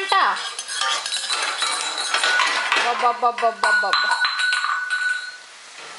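Metal utensils clinking and scraping against a stainless steel saucepan and small steel cup as a toddler stirs, in a quick run of clicks. One strike near the middle leaves the metal ringing for about a second.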